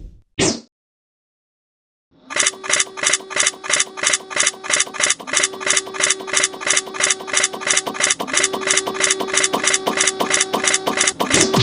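Railroad crossing warning bell ringing, a rapid even "kan-kan" of about three dings a second with a steady tone underneath, starting about two seconds in after a short silence.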